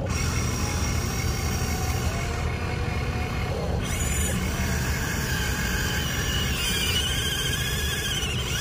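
Small electric motors and gears of a radio-controlled excavator whining as it swings and works its arm, the whine wavering in pitch from about halfway through, over a steady low rumble.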